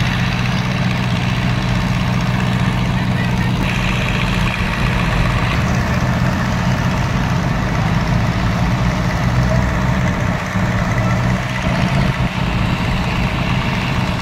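Diesel tractor engines, a Swaraj 855 among them, running steadily at a constant speed, with a crowd's voices over them.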